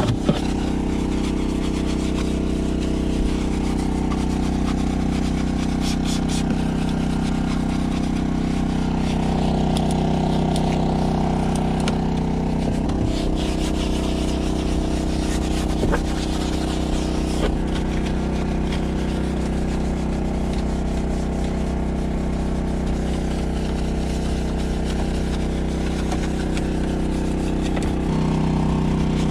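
An engine or motor running at one steady speed, its hum holding the same pitch, with light scratchy rubbing of a detailing brush scrubbing foamed cleaner on a plastic dashboard.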